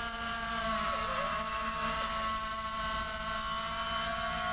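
Electric retractable landing gear of a Unique Models F4U-4 Corsair foam RC model, main gear and steerable tail wheel, whining steadily as the motors slowly drive the gear down. The pitch dips slightly about a second in.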